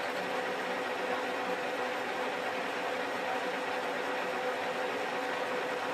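Archdale vertical milling machine running steadily, its spindle turning a shop-made fly cutter, with a constant hum and whine.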